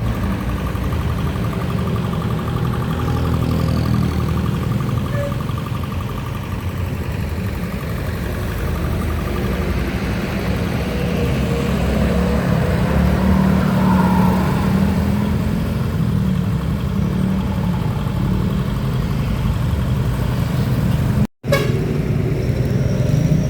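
Heavy vehicle engine running in road traffic, most likely a tour bus, a steady low drone that swells a little around the middle. The sound cuts out for an instant near the end.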